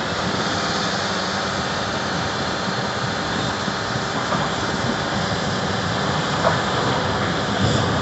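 Heavy diesel earthmoving machinery running steadily with a constant hiss, as a Volvo articulated dump truck raises its body to tip its load.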